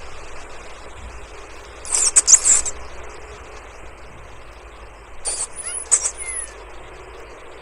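Rodent squeaking: two short clusters of very high-pitched squeaks, about two seconds in and again about five seconds in, over a steady background hiss.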